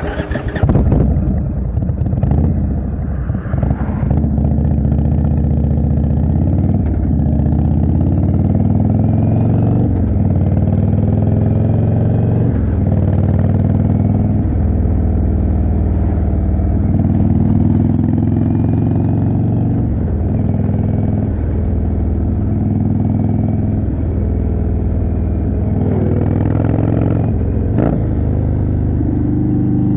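The 1811 cc V-twin of an Indian Chieftain motorcycle, heard through a Jekill & Hyde exhaust, pulls hard from the start. It climbs in pitch and drops back at each gear change, shifting up again and again, and settles into steady riding with a brief brighter rasp near the end.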